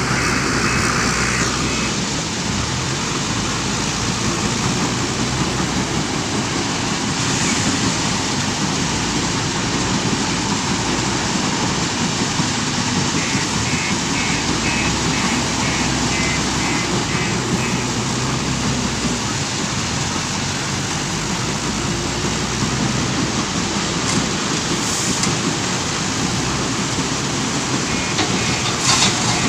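Steady din of a stone crusher plant and the diesel engine of a JCB 530-70 telehandler at work. Crushed stone pours from the telehandler's bucket into a dump truck's bed and stops about a second and a half in. Runs of short high beeps come about halfway through and again near the end.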